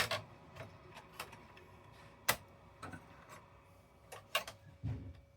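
Irregular sharp clicks and taps of PS5 console parts being handled and fitted together during reassembly, about seven in a few seconds.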